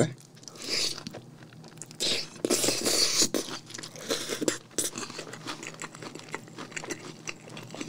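A person chewing a mouthful of sauce-coated fried chicken, with crunching bites and many short wet clicking mouth sounds. The chewing is loudest in bursts about a second in and again from about two to three seconds in.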